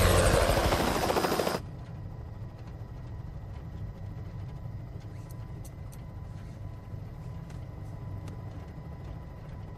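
Helicopter rotor and engine: a loud rush of rotor noise for about the first second and a half, then a steady, quieter low drone of the rotor heard from inside the cabin.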